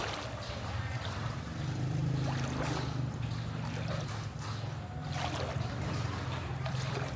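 Floodwater sloshing and splashing in irregular bursts over a steady low engine hum.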